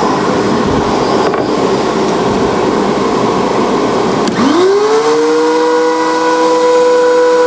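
Steady rushing workshop machine noise; about four seconds in, a benchtop thickness planer's motor spins up, a whine that rises in pitch and then holds steady.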